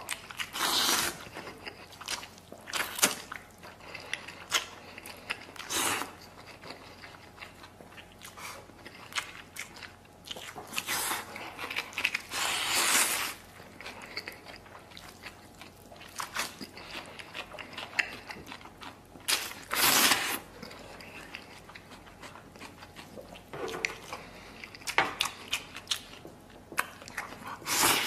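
Someone eating instant noodles close to the microphone: chewing, with short, louder bursts of eating noise every few seconds.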